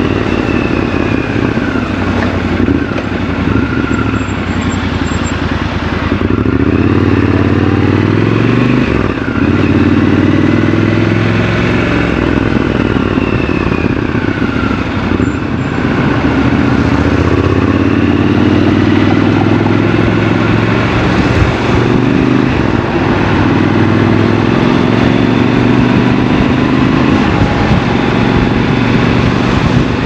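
Triumph Scrambler 1200 XC's 1200 cc parallel-twin engine running under way, its pitch rising several times as the bike accelerates through the gears and dropping between pulls.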